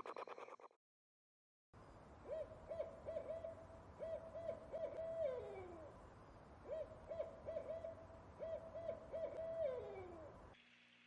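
An owl hooting: two phrases of about eight quick hoots each, the last note of each phrase sliding down in pitch. Before it, the tail of a rapid pulsing call is cut off in the first second.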